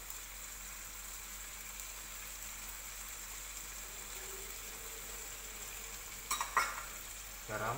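Tomato barbecue sauce sizzling steadily in a frying pan. About six and a half seconds in, there is a brief clatter of a few sharp knocks.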